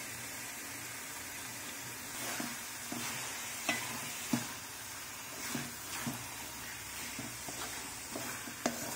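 Wooden spatula stirring and scraping thick beetroot halwa in a metal pan, with short scrapes and knocks against the pan every second or so. Underneath is a steady sizzle as the last of the water cooks off in ghee and the halwa thickens.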